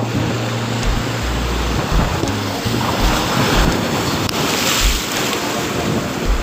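Rough seawater surging and breaking against a rock seawall, with strong wind buffeting the microphone in uneven gusts.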